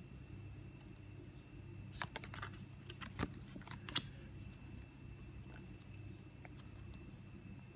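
Trading cards handled in the hands: a short run of light clicks and snaps about two seconds in, as a card is slid off the front of the hand-held stack, over a faint steady hum.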